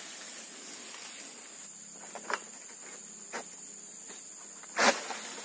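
Steady high-pitched buzz of insects, with a few faint knocks and then, near the end, one loud sharp crack as the sickle of a long egrek harvesting pole cuts into an oil palm frond stalk.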